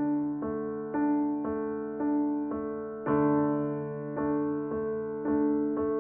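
Slow instrumental piano music: single notes struck about twice a second, each ringing out and fading over a held low tone.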